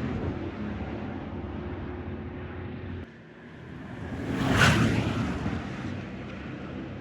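Supercars driving past on a race circuit. The engine sound of one car fades as it drives away and breaks off abruptly about three seconds in. Another car then approaches, passes loudly a little past halfway, and fades away.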